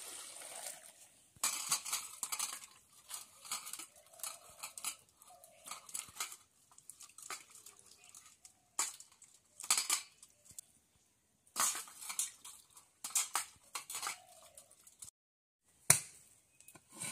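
Steel pots, bowls and utensils clinking and clattering in short separate bouts as food is prepared, after a liquid is poured from one vessel into another in the first second or so. A single sharp knock stands out near the end.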